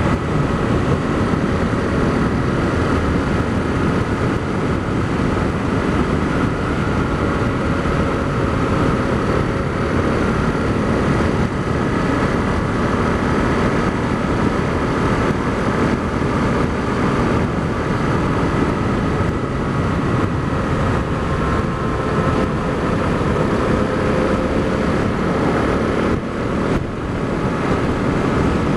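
Honda CRF250L's single-cylinder four-stroke engine running at a steady road cruise under heavy wind rush, heard from a helmet-mounted camera. The level dips briefly near the end.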